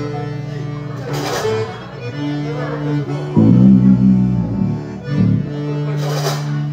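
Live zydeco band playing, led by accordion chords over drums, picked up close on a phone. Two short loud hisses come through, about a second in and near the end.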